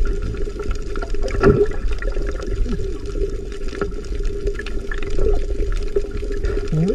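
Underwater ambience picked up by a submerged camera: a muffled, steady rush of water with scattered crackling clicks and a steady low hum.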